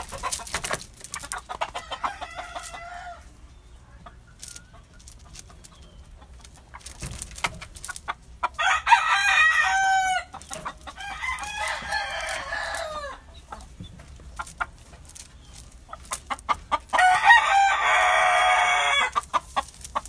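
Roosters crowing four times, each crow about two seconds long and falling in pitch at its end, the second and last loudest. Between the crows come many short sharp taps, with the caged gamecock pecking at the gravel floor.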